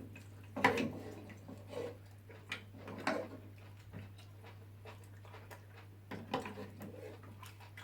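Close-up eating noises from fufu with ogbono soup: a few scattered slurps and lip smacks, over a steady low hum.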